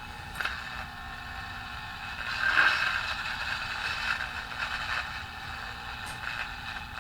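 Thin, hissy sound from a 1950s tube radio's speaker tuned to an AM station, with no clear words, swelling louder about two and a half seconds in.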